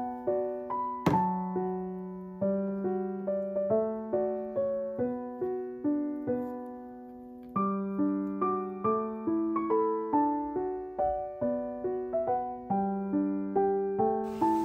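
Background piano music: a light melody of single notes, each struck and dying away.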